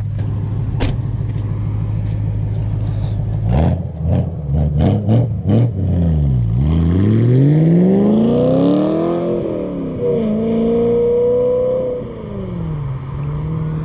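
BMW E92 M3's S65 4.0-litre V8 with a muffler delete idling, then blipped several times in quick succession, then revved out with the pitch climbing and falling in long sweeps, holding a higher note before dropping back toward idle near the end.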